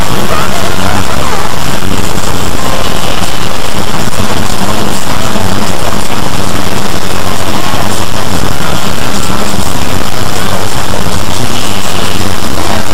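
Loud, heavily clipped jumble of many video soundtracks layered on top of one another, so that they blur into a steady distorted noise with only faint traces of voices or tones.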